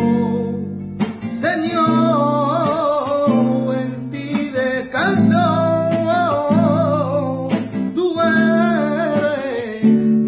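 Man singing a wavering, ornamented flamenco-style vocal line over a rhythmically strummed acoustic guitar.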